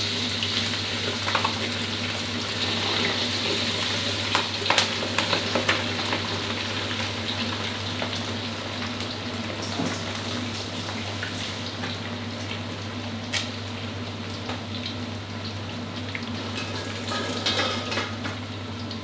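Battered chicken wing pieces with lemongrass and kaffir lime leaves deep-frying in a wok of hot oil: a steady, dense sizzle with scattered crackles and pops, busiest a few seconds in and again near the end, over a steady low hum.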